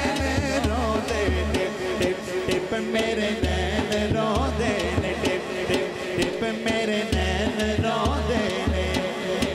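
Punjabi/Urdu naat sung solo into a microphone over a public-address system, backed by a steady beat on a large hand-played frame drum.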